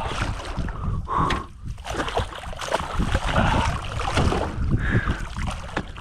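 A hooked redfish thrashing at the surface alongside the boat, a run of irregular splashes and sloshing water.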